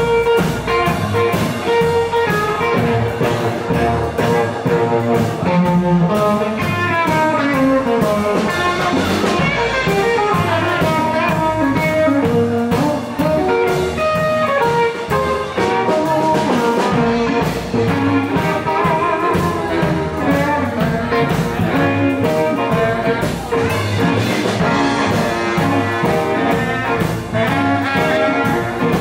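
Live blues band playing: electric guitar, acoustic guitar and drum kit, with saxophone.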